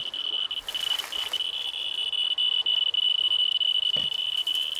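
Scintillation detector's audio giving a continuous high-pitched beeping tone with brief dropouts, as the gamma meter is held against a granite block. There is a short rustle of handling about a second in and a light knock near the end.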